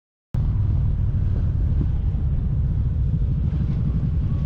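Kawasaki Vulcan 1700 Vaquero V-twin motorcycle riding along, its engine a steady low rumble mixed with wind buffeting the microphone; it cuts in suddenly from silence right at the start.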